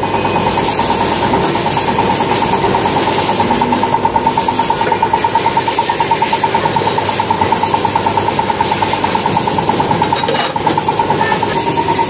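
Workshop machinery running steadily, a strong hum with a fast, even pulse.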